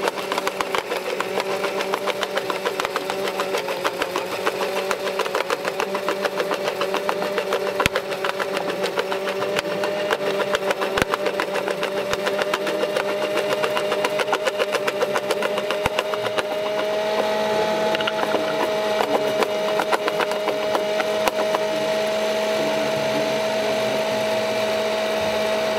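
Electric drive of a 1/16-scale RC jaw crusher model running, a steady whine slowly rising in pitch over a fast rattle. About two-thirds of the way through, the rattle eases and the whine gets louder.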